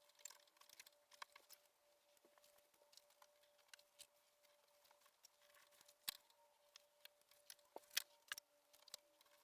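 Faint scattered clicks and rustles of ribbons being handled and hung on a rack, with sharper knocks about 6 and 8 seconds in, over a faint steady hum.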